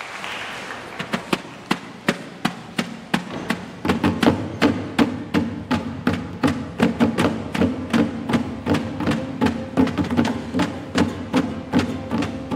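Music opening with a steady beat of sharp wood-block-like percussion clicks, about two to three a second; about four seconds in, a sustained low musical accompaniment joins under the beat.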